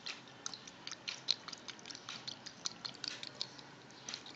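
Spoon working a thick, sticky melted chocolate and egg mixture in a steel bowl: many small, irregular wet clicks and squishes.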